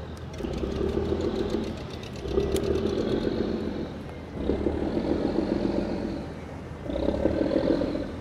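A fishing boat's diesel engine running in repeated surges. The engine rises for one to two seconds, then falls back, about every two seconds, as the throttle is opened and eased off again and again.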